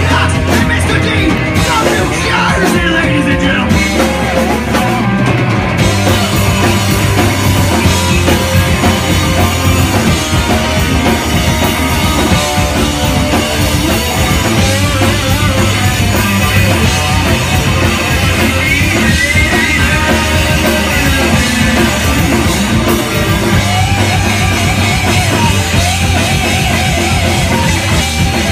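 A rock band playing loud live: distorted electric guitars over a drum kit.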